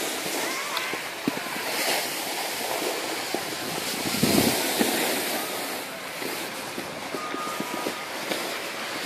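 Snow hissing and scraping under sliding snowboards on a groomed slope, with wind rushing over the microphone. A louder, deeper swell comes about four seconds in.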